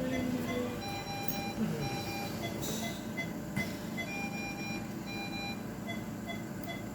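Electronic alarm beeping from a medical monitor: three beeps in a row, the group repeating about every three seconds, with fainter short beeps ticking along at an even pace.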